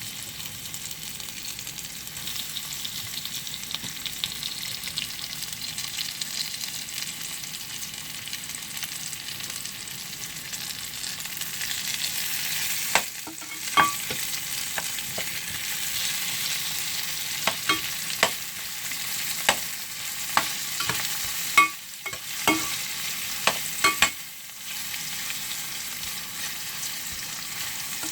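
Garlic and pork sizzling steadily in a frying pan as the garlic browns. From about halfway on, a stirring utensil knocks against the pan in a dozen or so sharp clicks.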